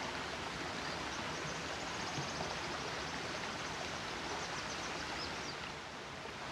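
Steady rush of a shallow stream running over stones, with faint high bird chirps now and then above it.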